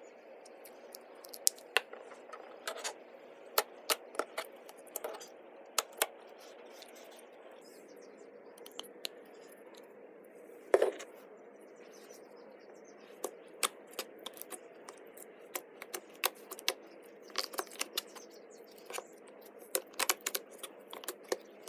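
Slime being pressed and kneaded by hand: irregular sharp sticky clicks and small pops over a faint steady hiss, the loudest a short crackle about halfway through.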